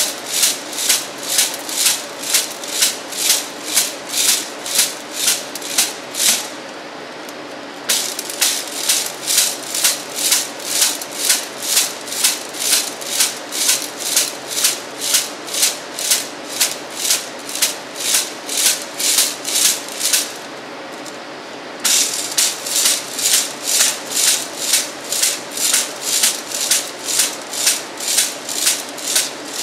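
Lidded brass No. 4 sieve of aggregate held at an angle and smacked with the heel of a gloved hand about two and a half times a second, the stones inside rattling with each smack: hand sieving to finish the sieve. The smacking stops twice for about a second and a half, where the sieve is turned.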